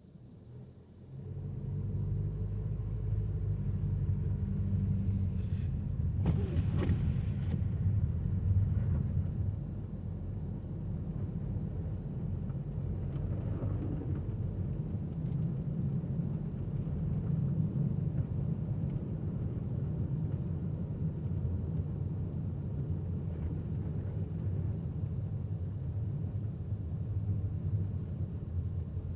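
Car running, heard from inside: a steady low engine and road rumble that comes up about a second in, with two brief hisses a few seconds later.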